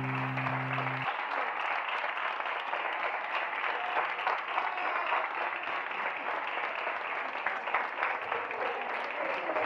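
Sustained music notes cut off about a second in, then a roomful of dinner guests applauding steadily.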